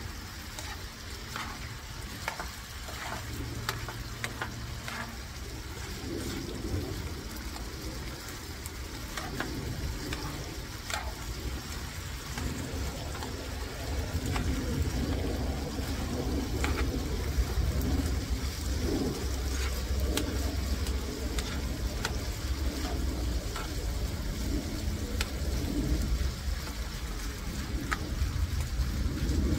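Chicken tocino sizzling in a frying pan, with metal tongs clicking and scraping against the pan as the pieces are stirred. A low rumble builds up about halfway through.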